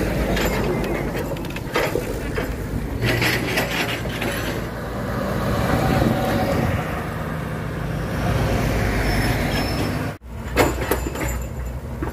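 Heavy diesel engines running as an excavator loads logs onto a logging truck, with sharp knocks of logs landing in the first few seconds and again near the end. In between, a heavy 6x4 truck drives past close by.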